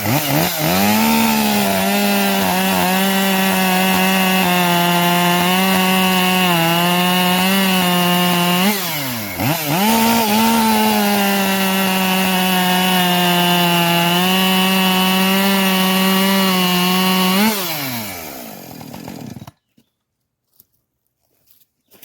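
Husqvarna 550 XP Mark II 50cc two-stroke chainsaw cutting wood at high revs. The engine note dips and swings about nine seconds in, then holds steady through a second stretch of cutting. Near the end the throttle is let off and the revs fall away before the sound stops abruptly.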